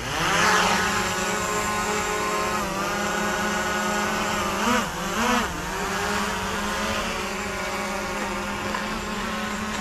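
Small DJI Mavic quadcopter drone lifting off: its propellers spin up with a quickly rising whine, then settle into a steady buzzing hover. The pitch rises and falls twice about halfway through as it manoeuvres.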